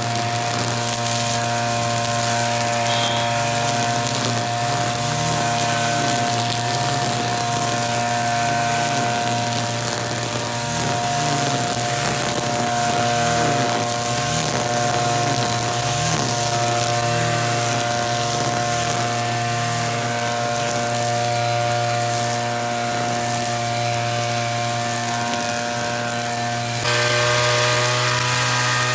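Petrol brush cutter engine running steadily while its trimmer line cuts tall grass. Near the end the tone shifts suddenly and it gets a little louder.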